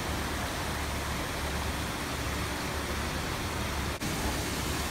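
Water running over the rocks of a small landscaped stream: a steady, even rush of splashing water, broken for an instant about four seconds in.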